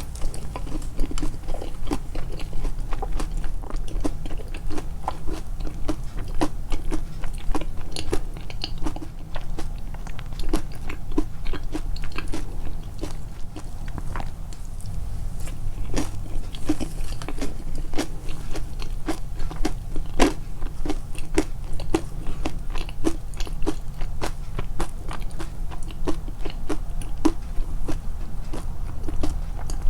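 Close-miked chewing of crunchy food, amplified for eating ASMR: a steady run of short crunching chews and bites, over a constant low rumble.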